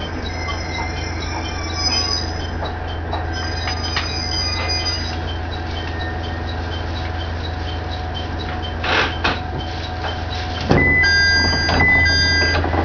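KiHa 110 series diesel railcar engine idling with a steady low hum while the train stands at a platform, with a faint regular ticking. Near the end a loud electronic chime of two alternating tones sounds.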